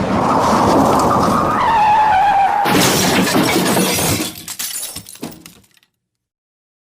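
Car crash sound effect: tyres skidding with a screech that falls slightly in pitch, then a sudden impact about two and a half seconds in, followed by glass shattering and debris clattering that dies away over about three seconds.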